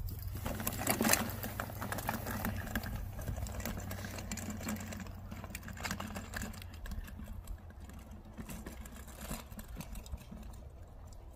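Folding wagon's wheels rattling and crackling over dry, bumpy grass as a dog pulls it, loudest at first and fading as it moves away, over a steady low hum.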